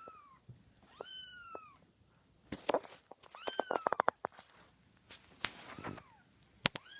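A three-week-old kitten mewing repeatedly: about four thin, high calls, each rising then falling in pitch. Sharp clicks and taps fall between them, with a quick run of clicks about halfway through.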